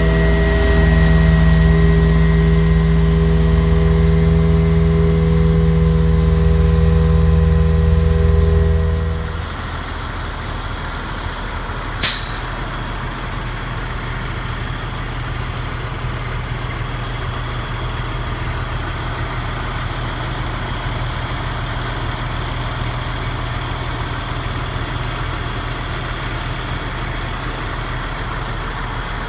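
Vac-Con vacuum truck's blower and engine running under load with a steady, loud drone. About nine seconds in, the drone cuts out and the machinery drops to a quieter, lower steady run. A single brief, sharp burst comes about three seconds after that.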